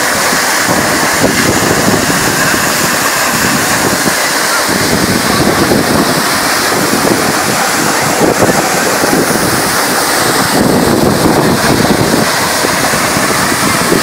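Waterfall plunging into a pool, a loud, steady rush of falling water, with spray and wind buffeting the microphone.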